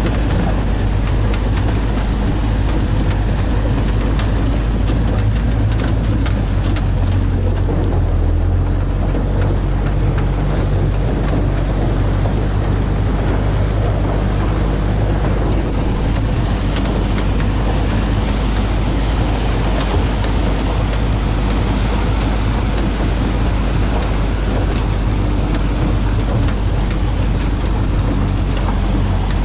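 Toyota Hilux LN106's diesel engine running steadily under load as it tows a car through shallow river water, with water splashing and wind on the microphone.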